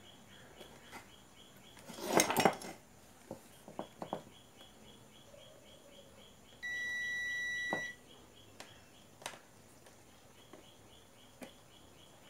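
Digital multimeter's continuity beep, one steady high tone lasting just over a second, sounding as the test probes find a near-zero-resistance path across the amplifier's power board: the sign of a short. Earlier comes a brief loud clatter of handling about two seconds in, then a few light clicks of the probes on the board.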